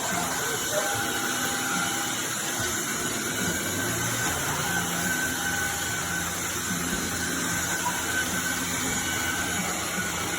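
Tineco cordless wet-dry floor vacuum running steadily: an even rushing noise with a few constant high tones from its motor.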